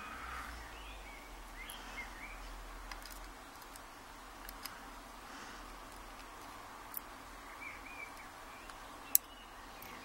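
Small sharp metallic clicks of steel tweezers and brass key pins tapping against a Mul-T-Lock lock plug as the pins are set into their holes, spaced a few seconds apart, the loudest near the end, over a low background hiss.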